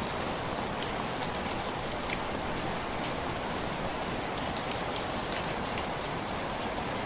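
Steady rain hitting window glass: a constant wash with many separate drops ticking on the pane.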